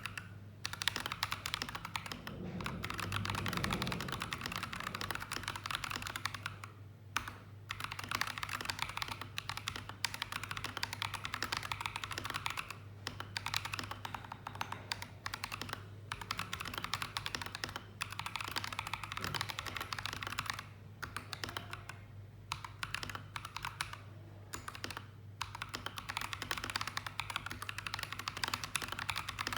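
Rapid, continuous typing on an AKKO 3098B mechanical keyboard with AKKO CS Lavender Purple switches, keys clacking in quick runs broken by short pauses.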